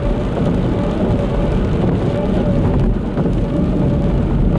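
Steady, loud rumbling noise with a faint steady hum above it.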